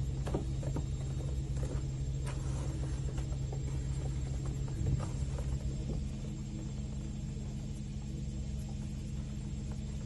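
Light scratching and tapping, small animals' claws on a plastic enclosure, over a steady low hum, with one louder knock about five seconds in; after about six seconds only the hum remains.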